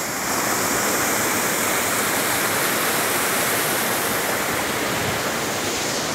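Waterfall: water falling and splashing in a steady, full rush.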